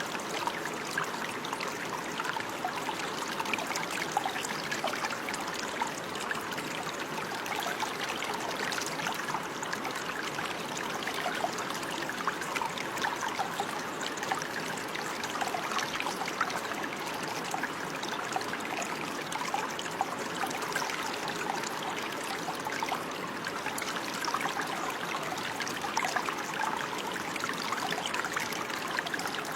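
Running water flowing steadily, with a dense patter of small trickling splashes.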